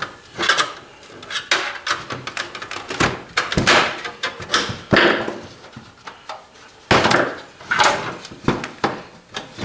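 Irregular clicks, knocks and scrapes of a satellite receiver's case cover being worked loose and slid upward off the chassis.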